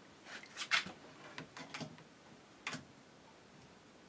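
A quick run of light clicks and knocks from butter being scraped off a churner's blade into a steel pot, the loudest about three quarters of a second in and one more near the end.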